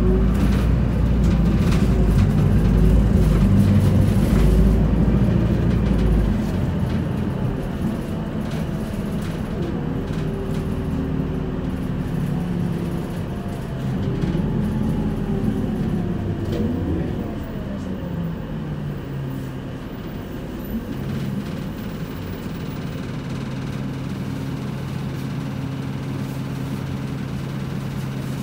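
Inside the cabin of an Isuzu Erga city bus (2PG-LV290N3), its 5.2-litre four-cylinder diesel running. A deep rumble is loudest for the first six seconds or so, then eases off, with whines rising and falling as the bus slows. Near the end it settles into a steady idling hum.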